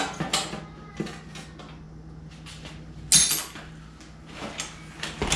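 License plate being taken off a car's front bumper: a string of light clicks and knocks from handling the plate and its fasteners, with one louder metallic clatter about three seconds in.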